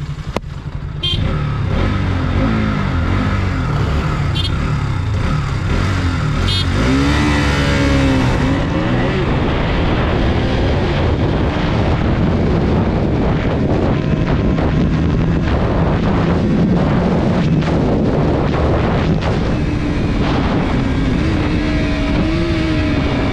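Three short horn beeps as a countdown, then single-cylinder KTM RC200 and Bajaj Pulsar 220F engines revving hard as they launch and accelerate up through the gears in a drag race. Heavy wind rushes over the helmet-mounted microphone throughout.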